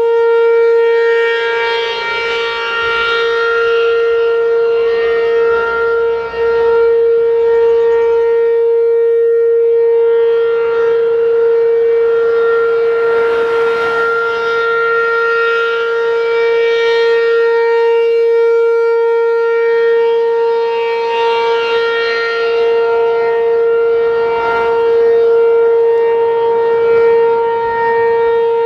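ACA P-15 outdoor warning siren sounding a steady alert at one unchanging pitch, with many overtones. Its brighter upper tones swell and fade every ten seconds or so.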